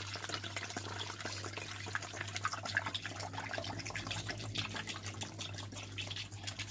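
Drinking water being poured into a clear plastic bottle over lime-salt hard candies: a steady pouring and splashing as the bottle fills, with a steady low hum underneath.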